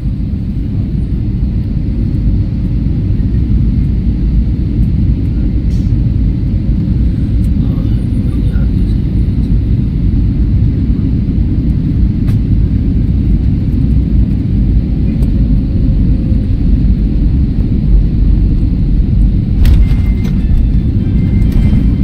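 Steady low rumble of an airliner's cabin with the plane at ground level on the runway, slowly growing louder.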